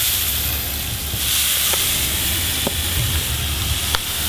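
Steady hissing noise with a low rumble underneath and a few faint ticks.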